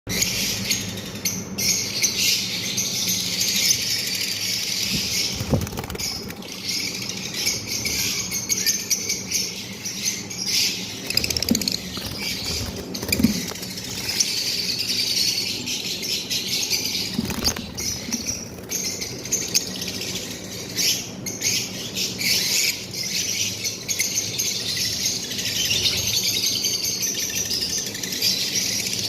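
Lovebirds chirping and chattering in a continuous, busy high-pitched chorus, with many short sharp chirps.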